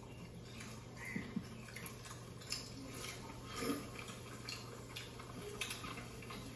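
Faint wet clicks and smacks of people eating mutton biryani with their hands: chewing, lip smacks and fingers squishing rice.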